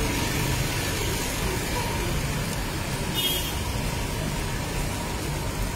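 Steady road traffic noise from vehicles passing on an adjacent street, with a brief high-pitched sound about three seconds in.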